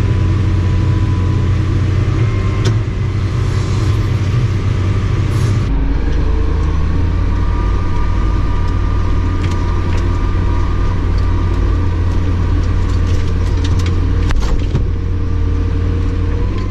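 Combine harvester running steadily while harvesting soybeans, its low drone dropping to a deeper note about six seconds in, with a thin whine and scattered light ticks over it.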